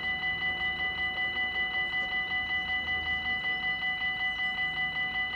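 Level-crossing warning bell ringing rapidly and steadily, about four strokes a second. It signals that the crossing is closed for an approaching train.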